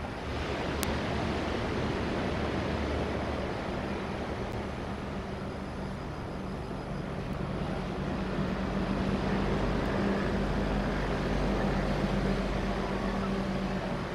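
Diesel-hauled passenger train running through with a steady low engine drone over a rush of rolling noise, growing somewhat louder past the middle.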